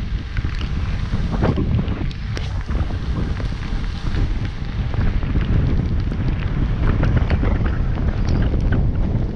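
Wind buffeting the camera microphone on a moving bicycle: a steady loud rumble, with scattered small ticks and clicks over it.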